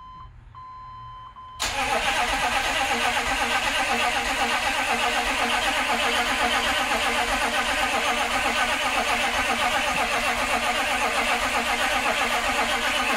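A 6.5L turbo diesel V8 turning over on its starter with an even, fast pulsing, cutting in suddenly about a second and a half in after a thin steady tone. This is the first start attempt after a fuel injection pump replacement.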